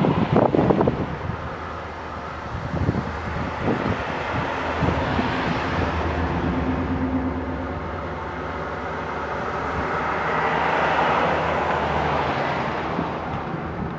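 A vehicle engine hums steadily while a car goes by, loudest about eleven seconds in. There is a little wind on the microphone.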